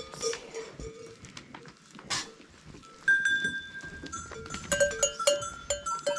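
Livestock bells on sheep clanking irregularly as the animals move, with rustling. The bells start about halfway through.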